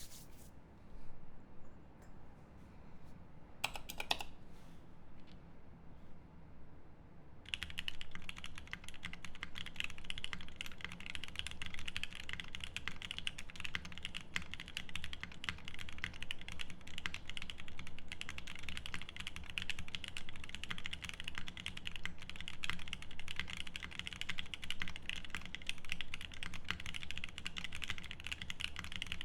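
Typing on a custom mechanical keyboard with lubed Angel switches, a polycarbonate plate and GMK keycaps. A few scattered clicks come first, then fast, continuous typing starts about a quarter of the way in and keeps going.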